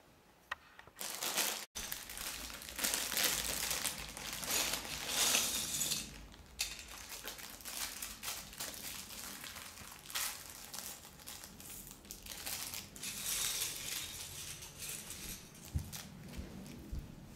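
A plastic bag of Lego pieces crinkling in repeated uneven bursts as it is handled and opened.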